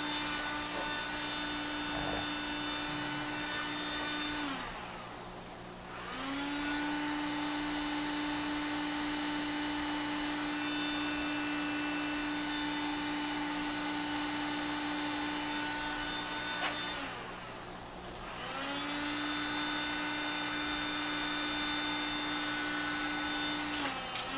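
Heat gun's fan motor running with a steady whine. It is switched off and on: it winds down in pitch about four seconds in and spins back up a second or so later, does the same past the middle, and winds down again at the end.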